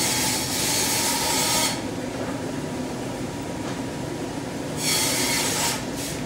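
Rubbing and scraping noise close to the phone's microphone over a steady background of store noise. The rubbing drops away about two seconds in and comes back briefly near the end.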